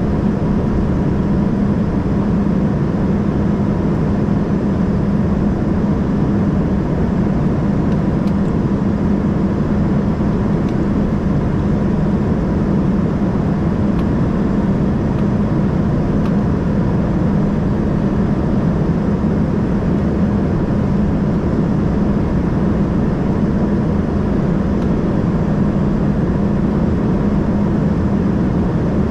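Steady in-flight cabin noise of an Embraer ERJ 145: the roar of air and of its two rear-mounted Rolls-Royce AE 3007 turbofans heard from a window seat, with a steady low hum and a faint steady whine.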